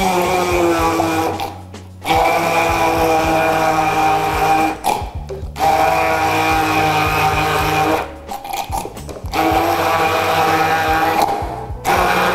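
Hand-held immersion blender running in a plastic beaker, puréeing chickpeas with oil, garlic and parsley into hummus. It runs in five bursts of about two to three seconds, with four short pauses between them.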